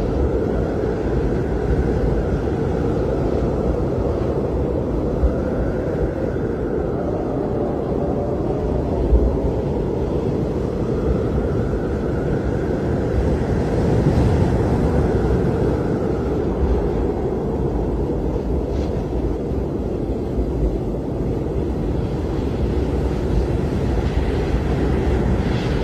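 Snowstorm wind sound effect: a steady, low rumble of blizzard wind with a faint howl that rises and falls several times.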